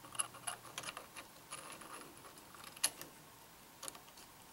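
Small metal clicks and light rattles as the top half of a LaRue LT150 mount ring is handled and seated over the red-dot sight's tube, in an irregular run of taps with one sharper click about three seconds in.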